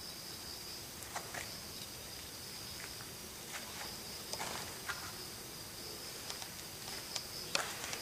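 Quiet background with a steady high-pitched whine, and a scattering of light scuffs and clicks that come closer together near the end.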